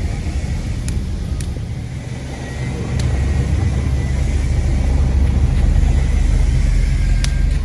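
Wind rumbling on the microphone, with a few light clicks of handling.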